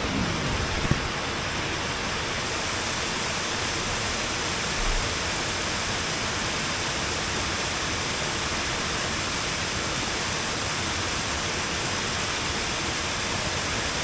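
Steady rush of water tumbling down a small tiered cascade over rock steps.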